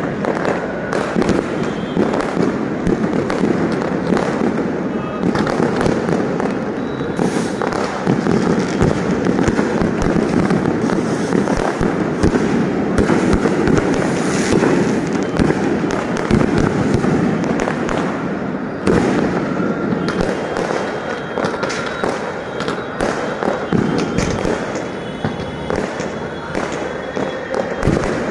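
A fireworks display: rapid, unbroken crackling and popping as many shells and crackling stars burst at once.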